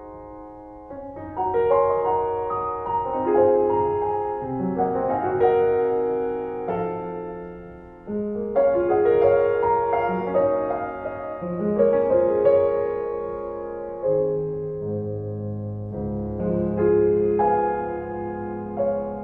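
Background piano music, a slow melody of struck notes.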